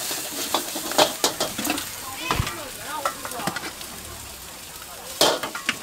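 Leafy greens sizzling in a carbon-steel wok over a gas burner, a metal spatula scraping and clanking against the pan as they are stir-fried. The strikes bunch up about a second in and again near the end.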